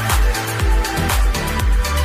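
Electronic dance music with a steady four-on-the-floor kick drum, about two beats a second, over a bass line.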